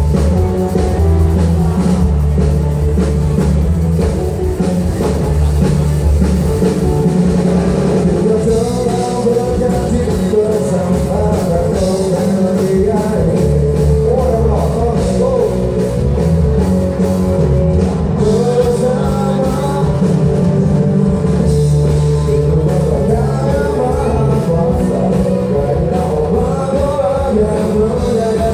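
Rock band playing live: a lead singer over drums, electric guitar and bass, with the music running steadily throughout.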